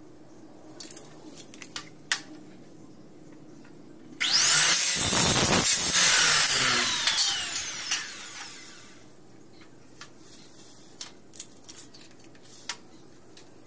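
Compound miter saw starting and cutting through a white aluminium window profile for about three seconds, then its blade winding down with a falling whine. Light clicks and taps of the profile being marked and moved against the fence come before and after the cut.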